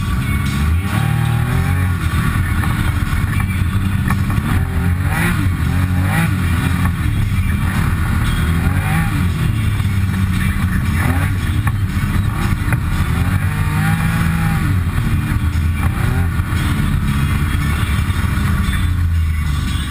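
Side-by-side UTV engine running, heard from inside the cab, its pitch rising and falling repeatedly as the throttle comes on and off.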